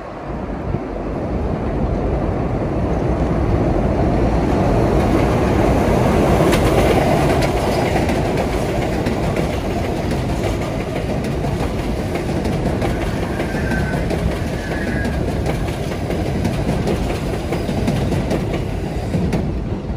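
New York City subway train going by on the rails, its noise building over the first few seconds and then holding steady.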